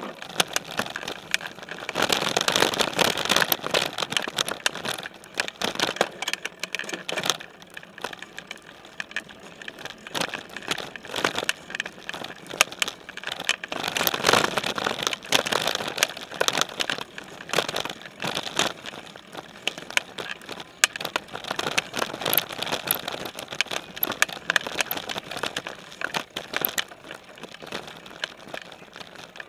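Specialized Stumpjumper mountain bike ridden over dirt singletrack, heard from a frame-mounted camera: tyre noise on the dirt with a constant rattling and clicking of the bike. It grows louder about halfway through as the tyres roll across a wooden plank bridge.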